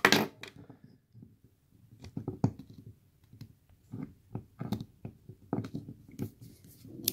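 Steel hook pick clicking and scraping against the metal of a padlock as it is worked into the gap beside the shackle. There is a sharp click right at the start, then irregular small clicks and scrapes.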